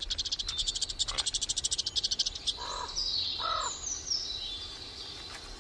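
Forest bird calls. A rapid high trill of about a dozen notes a second runs for the first two seconds, then come two short lower calls, then a descending series of high whistled notes.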